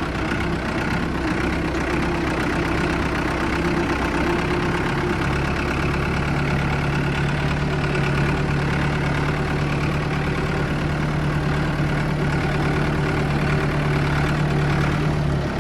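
Vehicle engine idling steadily, just fired up on a cold start.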